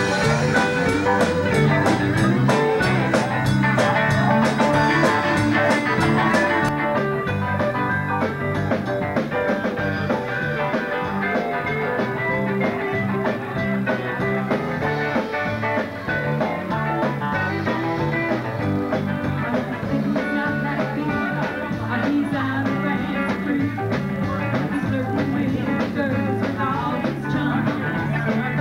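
Live band playing on electric guitars, fiddle and drums, with singing over a steady beat.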